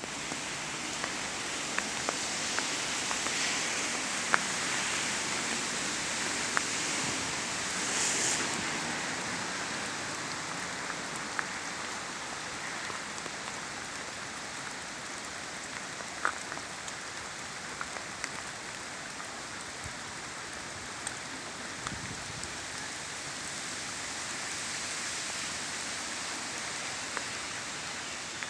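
Steady rain falling, with scattered sharp ticks of single drops landing close by.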